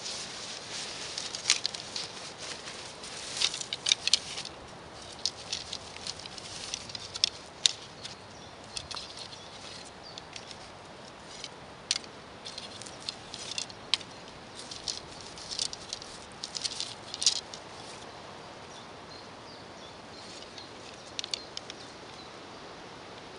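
Irregular light clicks and rustles of 8 mm beech dowel sections of takedown atlatl darts being handled and knocked together, with a fabric bag rustling. They come in close clusters, thin out after about 18 seconds, and a last few come near 21 seconds.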